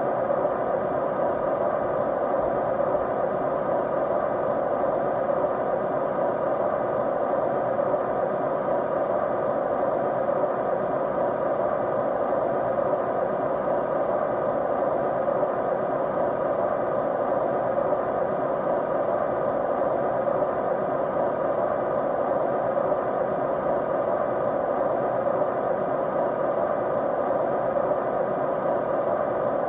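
Steady white noise: an unbroken rushing hiss, fullest in the lower middle range, with faint steady hum tones running through it and no change over time.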